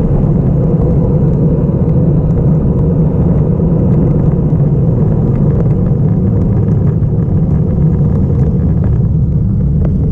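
Wind rumbling on a GoPro's microphone as a road bicycle rolls downhill, with tyre noise on the tarmac; a steady, loud, low rumble. Light clicks come through over the last few seconds.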